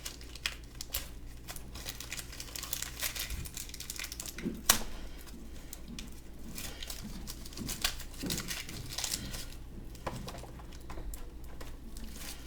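Plastic toy packaging crinkling and rustling as hands work at it, with scattered clicks and one sharper snap about halfway through, as a stuck accessory piece is pried at and will not come out.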